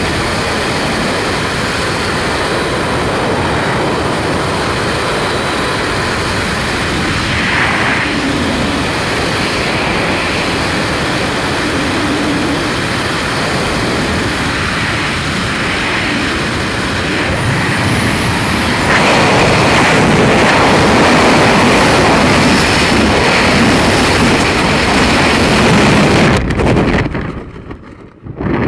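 Freefall wind rushing hard over the camera's microphone: a loud, steady noise that grows louder about two-thirds of the way through. Near the end it drops away almost completely for about a second, then comes back.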